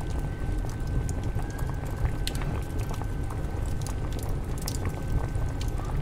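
Water boiling: a dense low bubbling with scattered small pops and clicks, over a thin steady high tone.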